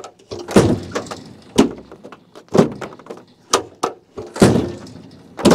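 Kubota UTV tailgate worked one-handed by its new cable pull, latching and banging shut again and again: a run of heavy clunks about once a second.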